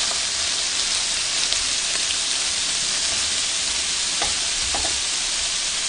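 Shrimp rolled in thin-sliced pork belly sizzling on a hot grill plate: a steady frying hiss.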